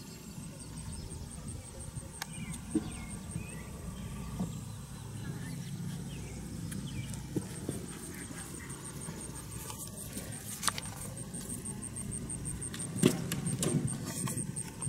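Horse cantering a show-jumping course on grass: dull hoofbeats with a few knocks, and a louder thud about thirteen seconds in as it meets a fence. Under it runs a steady low rumble and a fast, regular high ticking.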